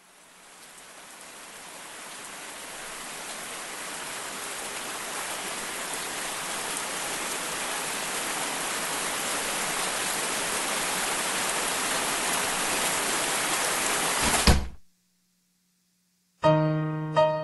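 Rain noise swelling steadily louder for about fourteen seconds, ending in a thump and an abrupt cut to silence. After a short pause a piano begins playing chords near the end.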